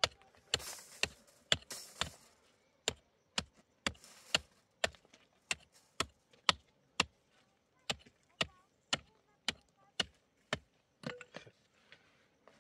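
A hand tool striking over and over in a steady rhythm, about two sharp knocks a second, with a few short scraping rasps near the start.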